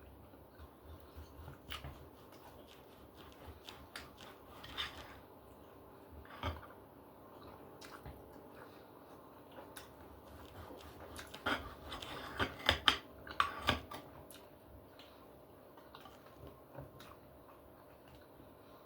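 Mealtime eating sounds: scattered clicks of cutlery on a plate, with a cluster of louder clinks about twelve seconds in.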